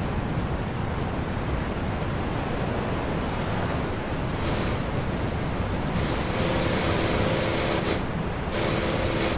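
Pump boat under way at sea: a steady engine drone mixed with the rush of water and waves along the hull and wind, the hiss shifting abruptly a few times.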